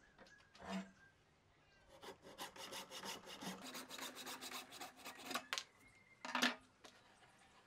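Hacksaw cutting across a turned wooden hammer blank clamped in a bench vise: a run of quick, even saw strokes for about three and a half seconds, then it stops. A soft knock comes about a second in, and one loud sharp knock follows about a second after the sawing ends.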